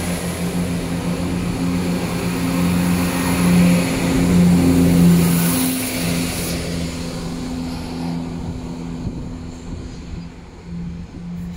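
Chiltern Railways Class 168 diesel multiple unit pulling out, its underfloor diesel engines giving a steady low drone that fades from about halfway through as the train draws away.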